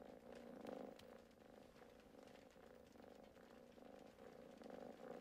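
A cat purring softly, a low rumble that swells and eases in a slow, even cycle.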